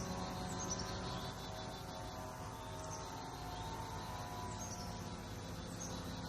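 A low, steady drone of several held tones, the kind of hum presented as a strange sound in the sky. Birds chirp over it now and then in short, falling notes.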